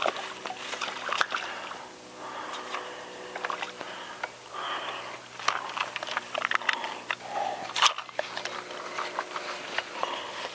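Irregular clicks, scrapes and rustling from a fishing rod, reel and line being worked by hand while a hooked fish is brought in, over a faint steady hum.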